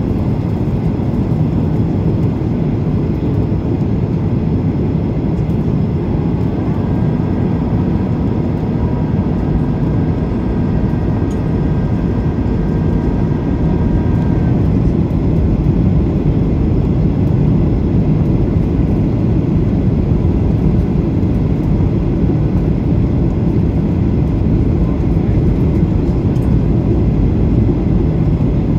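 Airliner cabin noise on approach: a steady rumble of jet engines and rushing air. A faint high whine joins it for several seconds about a quarter of the way in, and the noise grows a little louder about halfway through.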